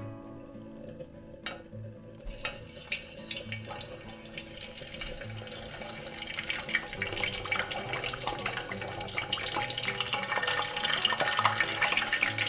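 Whole pork leg deep-frying in hot oil: sizzling with pops that starts about two seconds in and grows steadily louder toward the end.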